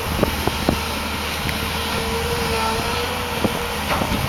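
Diesel engine of an amphibious excavator with a Volvo EC210 upperstructure running steadily while the boom works. A faint, slightly wavering whine rides over the low hum, with a few light knocks.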